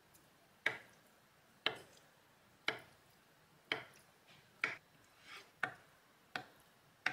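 Kitchen knife slicing down through a block of tofu and tapping on a plastic cutting board: about eight sharp taps, roughly one a second, some with a soft slicing sound just before or after.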